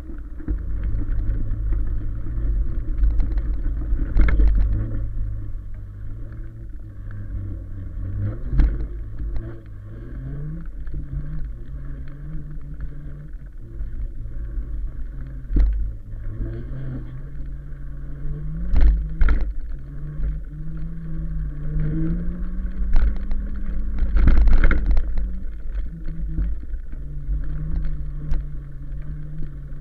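1000-watt e-bike's electric motor humming under way, its pitch stepping up and down as the speed changes, over a constant low rumble. Several sharp knocks come as the bike jolts over the rough grass track.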